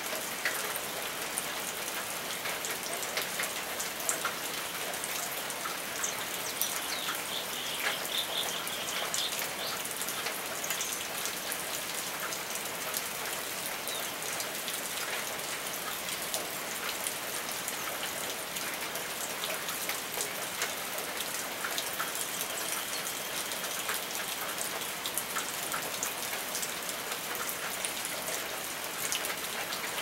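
Steady rain falling, with many individual drops ticking on surfaces close by.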